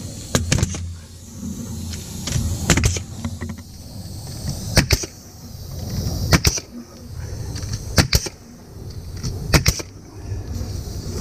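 Pneumatic nail gun firing into wooden braces, sharp shots coming in quick pairs about every second and a half to two seconds, six pairs in all, over a steady low rumble.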